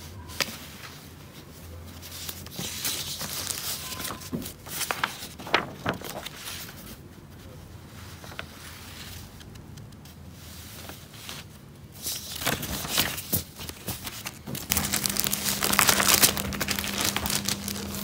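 Sheets of drawing paper rustling and crinkling as they are handled and swapped, in several bouts with sharp crackles, the longest and loudest near the end as the paper is lifted away.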